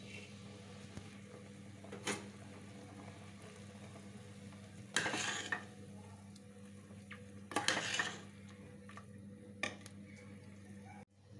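A steel ladle stirring boiling spiced water in a pressure cooker, scraping and clinking against the pot in a few short bursts. The loudest bursts come about five and eight seconds in, over a faint steady background.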